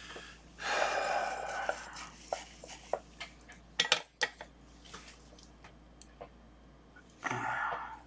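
A long breath out close to the microphone about half a second in, then scattered sharp clicks and taps of tools and parts being handled on the workbench, loudest a pair around four seconds in. A second, shorter breath comes near the end.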